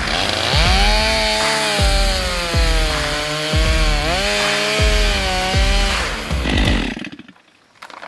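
Two-stroke Stihl chainsaw plunge-cutting into a dead tree's trunk under load, its engine pitch repeatedly sagging and recovering as the bar bites. It cuts out about seven seconds in.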